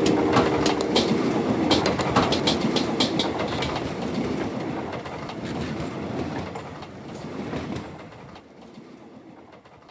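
A train passing, its rumble and clattering wheel clicks fading steadily away until only a faint trace is left near the end.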